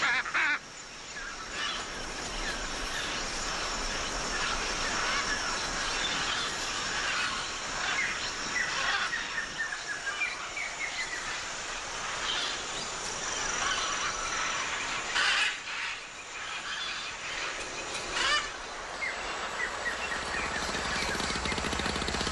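Macaws squawking in flight, harsh loud screeches about half a second in and twice more near the end, over many short falling bird chirps and a steady high-pitched tone.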